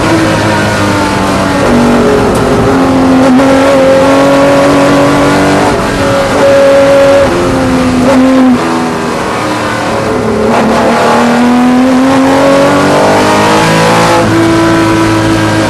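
Porsche 911 ST's 2.5-litre air-cooled flat-six at racing speed. The note climbs and drops with gear changes and lifts. It falls sharply about eight and a half seconds in, is lowest near ten seconds, then climbs again under full throttle.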